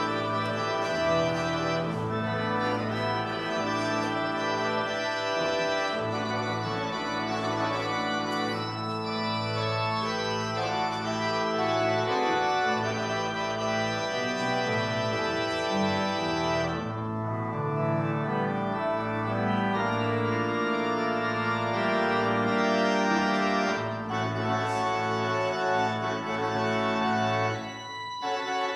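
Organ music playing slow, sustained chords over long held bass notes, with a short break near the end.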